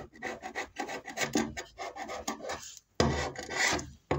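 Scraper blade scraping tar-like insulation residue off a Sprinter van's ribbed steel floor, in rapid short strokes. After a brief pause about three seconds in comes one longer, louder scrape. The residue is coming away along with the floor's white paint.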